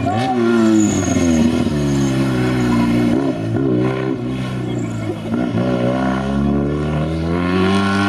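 Steyr Puch 650T rally car's small air-cooled flat-twin engine revving hard under acceleration. Its pitch climbs and drops back about three times as the driver shifts and lifts.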